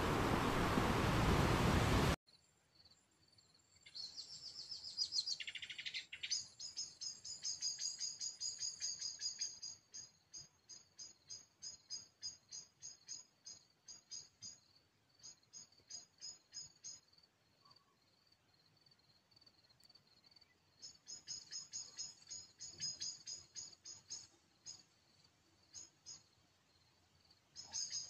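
Surf washing over a flat beach, cutting off about two seconds in. Then crickets chirping at dusk: fainter trains of rapid, high-pitched chirps that stop and start, with a short falling whistle about five seconds in.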